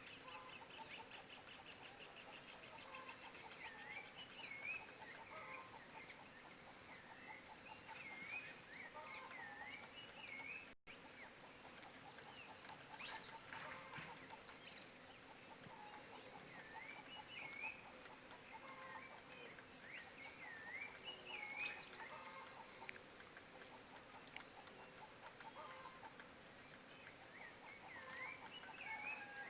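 Birds calling in short, looping whistled notes that come in small groups, over a steady high insect drone. Two sharp clicks, one about halfway through and one a few seconds later, are the loudest sounds.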